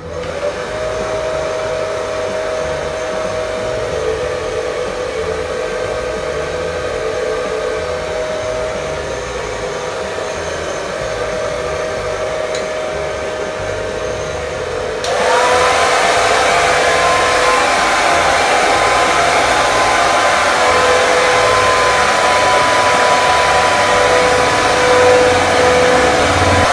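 Handheld electric hair dryer blowing steadily with a motor whine. About halfway through it gets louder and the whine jumps to a higher pitch, then holds steady.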